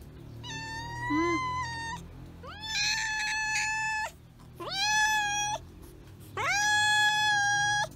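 Calico cat meowing insistently: four long drawn-out meows, each lasting one to one and a half seconds with a short gap between them. It is begging for food while the meal cooks, as a hungry cat does.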